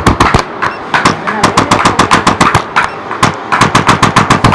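Hands striking a patient's body in quick percussive massage strokes, about a dozen a second, in short runs with brief pauses.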